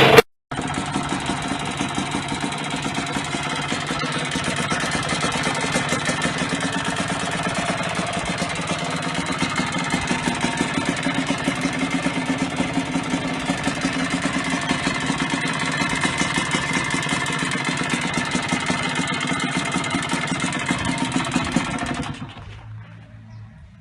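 Yamaha DT125 two-stroke single-cylinder motorcycle engine running steadily at an even speed, stopping abruptly near the end.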